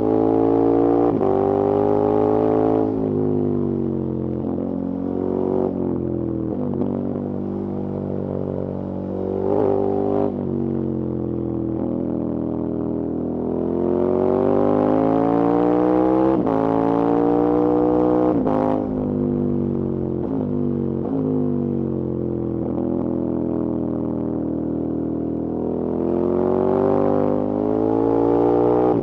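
KTM 1290 Super Adventure S's V-twin engine under way, its pitch climbing and falling several times as it pulls through the gears, with short breaks at the shifts.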